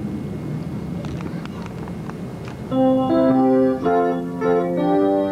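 Low hiss and hum with a few faint clicks, then electronic keyboard or organ music starts with a loud run of sustained chords about halfway through, the intro to a sung song.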